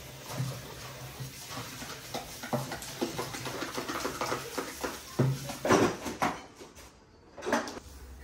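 Tap running into a stainless steel kitchen sink while dishes and utensils clatter as they are rinsed, with two louder knocks near the end.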